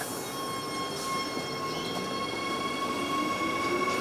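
Adelaide Metro 4000-class electric multiple unit running past, with a steady high electric whine and a lower tone that rises in pitch in the second half.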